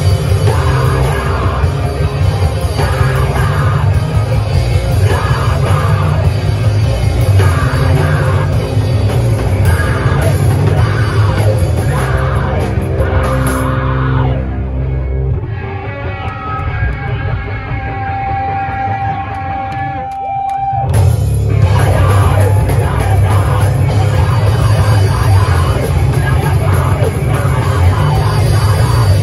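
Live heavy rock band playing loud, with distorted guitars, bass, drums and shouted vocals. About halfway through, the bass and drums drop out, leaving a thinner passage with one held high guitar note, and the full band crashes back in about three-quarters of the way through.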